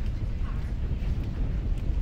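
Wind buffeting the microphone outdoors: a steady, uneven low rumble with a faint voice in the background.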